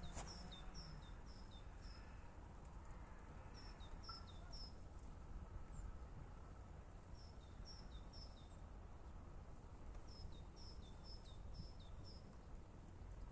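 A small songbird calling in short phrases of three or four quick high chirps, repeated every couple of seconds, over a faint low outdoor rumble.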